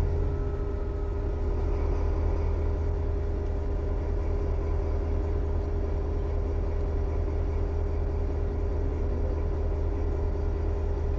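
SNCF BB 67400-class diesel locomotive idling at standstill: a steady low engine hum with a constant higher drone over it.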